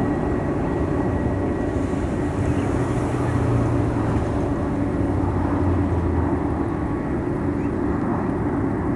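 Jet airliner engines as a steady rumble: a Boeing 737 on landing approach and a Boeing 747 waiting at the runway.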